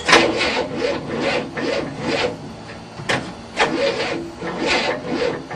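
A 1967 Cadillac V8 being cranked by its starter motor, turning over slowly and harshly in rasping strokes about twice a second, with a short break about halfway through. The engine does not catch; the crew suspects it is flooded.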